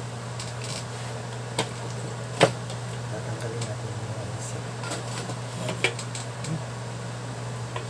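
A few sharp knocks and clicks of hand tools being handled and set down on a wooden workbench, the loudest about two and a half seconds in and another near six seconds, over a steady low hum.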